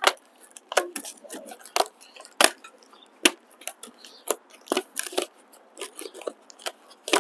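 Irregular sharp clicks, taps and rustles of hands working at the cardboard and plastic packing on a new bike's frame, pulling at a rubber band that holds the wrapping.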